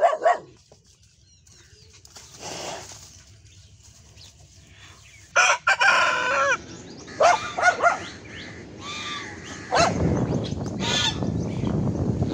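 Rooster crowing, a run of pitched calls through the middle and later part. A short sharp sound comes at the very start, and a low rushing noise runs under the calls near the end.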